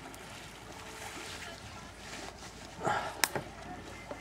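Faint outdoor background noise with distant voices, broken about three seconds in by a short loud burst and then a single sharp click.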